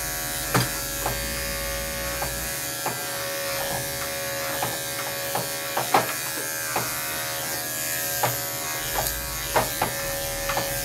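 Corded electric dog-grooming clippers running with a steady buzz while clipping a dog's fine coat, with scattered sharp clicks over the hum.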